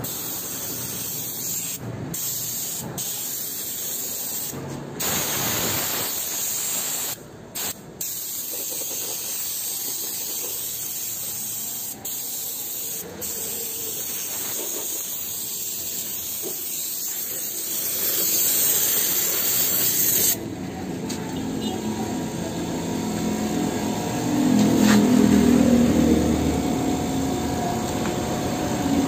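Compressed-air water spray hissing steadily from a pneumatic air washing gun, with a few brief breaks, then cutting off abruptly about two-thirds of the way through. A duller, lower noise follows.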